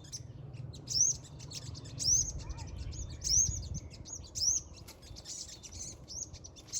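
A small bird chirping: a short, high, arched note repeated about once a second, with fainter chirps in between, over a low rumble.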